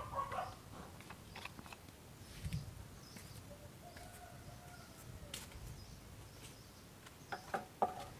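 Quiet outdoor background with a faint bird call midway and scattered light clicks and taps, a few sharper ones near the end.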